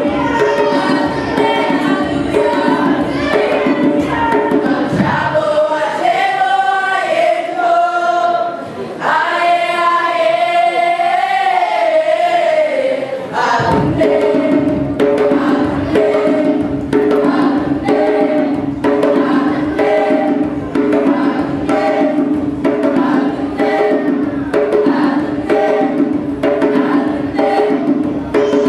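Children's choir singing with a steady drum beat. The drums drop out for several seconds in the middle while the voices hold long notes, then come back in.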